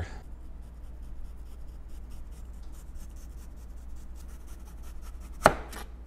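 A kitchen knife thinly slicing a raw potato on a plastic cutting board: quick, regular strokes of the blade through the potato and onto the board, with one sharper knock near the end.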